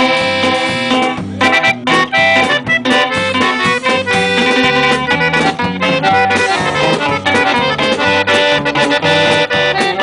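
Live norteño music: a button accordion leads an instrumental passage over strummed guitars, bass and a drum kit, with no singing.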